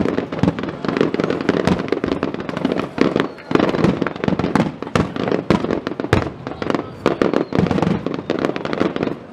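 Fireworks finale: many aerial shells bursting in quick succession, a dense, continuous run of booms and crackles with several bursts a second.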